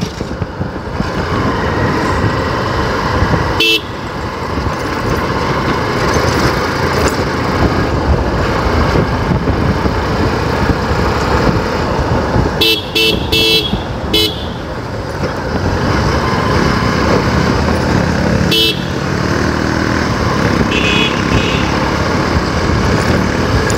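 Motorcycle running at riding speed with steady engine, wind and road noise, heard from the rider's seat. Short horn beeps sound about four seconds in, a quick run of several beeps around the middle, another a little later and fainter ones near the end.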